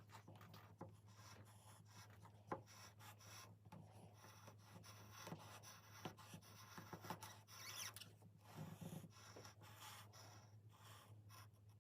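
Faint scraping and rubbing of a blade shaving thin curls from wood, with a few soft clicks, over a low steady hum.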